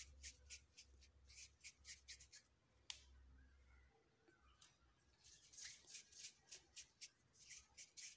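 Faint, crisp rustling and ticking from thin warqa pastry sheets being handled, in quick runs of about three or four ticks a second, with one sharper click about three seconds in.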